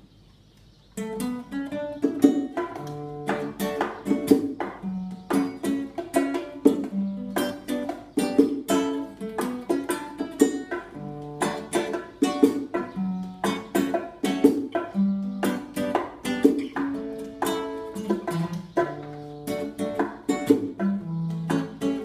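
Nylon-string classical guitar playing a reggae-style instrumental intro of strummed chords and bass notes, starting about a second in, with hand-played bongo drums joining in.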